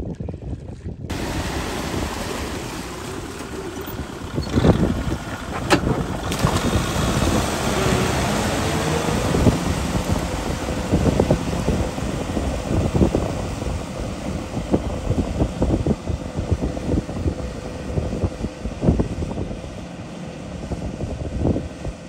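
Tractor engine running as it pulls a rotary tiller through a flooded rice paddy, churning water and mud, with wind buffeting the microphone and irregular thuds throughout.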